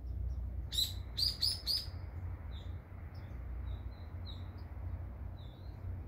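Wild songbirds calling in woodland: a burst of four loud, sharp chirps about a second in, then softer, scattered chirps, over a steady low rumble.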